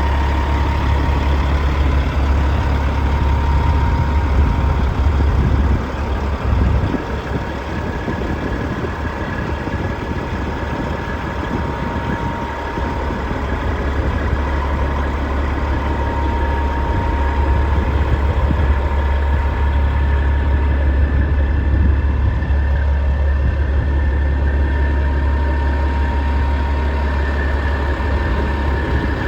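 Caterpillar 3406E inline-six diesel in a 1998 Peterbilt 379EXHD semi truck idling steadily with a deep, even hum.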